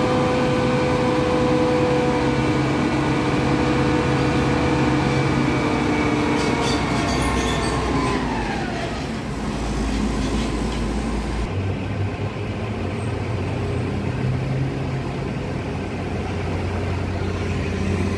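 Concrete pump truck's diesel engine running at raised revs with a steady whine, which drops in pitch about eight seconds in; after that a lower, steady engine hum.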